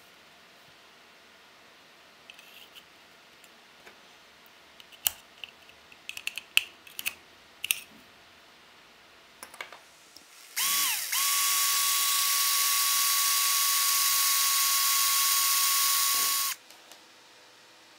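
A few small plastic clicks and knocks, then about ten and a half seconds in a power drill starts with a brief burst and runs at a steady, unchanging pitch for about five seconds, boring a hole through a plastic battery-pack casing, then stops abruptly.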